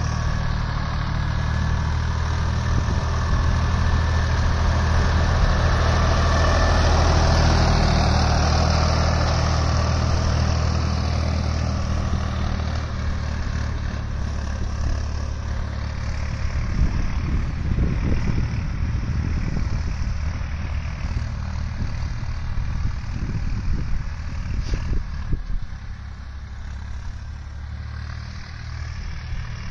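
Swaraj 960 FE tractor's three-cylinder diesel engine running steadily under load as it pulls a laser land leveller. It is loudest about a quarter of the way in and fades as the tractor moves away. Irregular low crackling rumbles sit over it in the second half.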